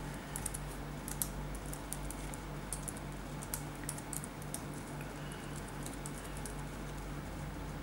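Computer keyboard keys clicking in irregular runs as a line of text is typed, the keystrokes thinning out near the end, over a steady low hum.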